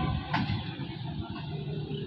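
Low, uneven rumble of a passenger train pulling away from the station, with a faint steady hum and a single click about a third of a second in.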